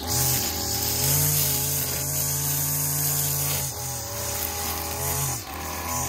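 Gas-powered string trimmer running at high throttle, cutting grass. After about three and a half seconds the engine drops off and revs back up twice as the throttle is eased and squeezed again.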